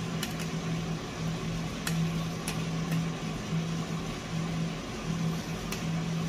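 Coffee roaster running with a steady fan whir and a low hum that cuts in and out. A few sharp pops come through every second or so: coffee beans cracking in first crack.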